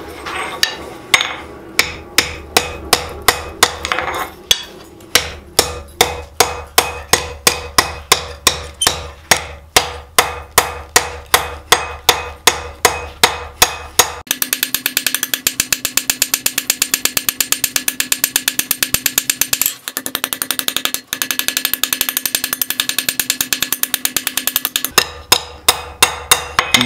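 Blacksmith's hammer striking hot steel on an anvil while forging a socketed arrowhead. The blows come at about three a second, then about halfway through change to a much faster, continuous run of light strikes with the anvil ringing, and slow down again near the end.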